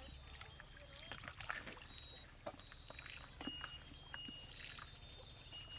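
Hands squelching and splashing in shallow muddy water, with scattered short wet clicks. Over this, birds give many short, high whistled notes at a few different pitches.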